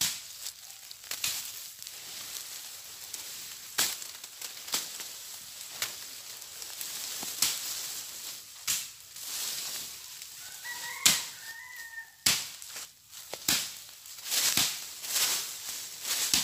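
Dry leaves and brush being swept and scraped with a stick in irregular swishes, with the crackle of burning brush during bush clearing. A bird gives a short two-note call about two-thirds of the way through.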